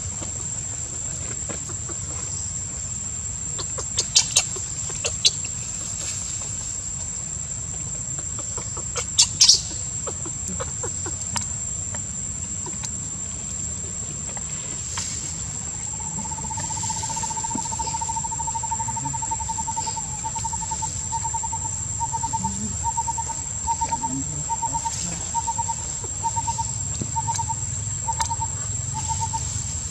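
Steady high-pitched insect buzz throughout, with a bird joining about halfway in: a repeated short note, quick at first, then about two a second. A few sharp clicks come in the first third.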